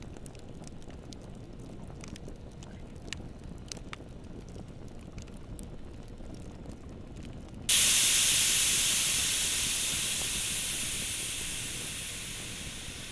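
Faint scattered clicks over low noise, then about eight seconds in a sudden loud hiss that fades away steadily over the next five seconds.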